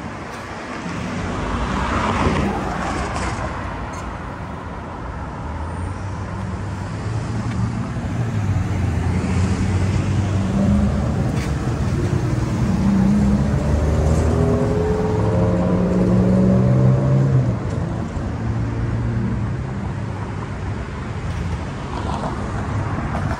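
City street traffic: a car passes about two seconds in, then a vehicle engine hums low and close, its pitch climbing as it pulls away before easing off after about 17 seconds.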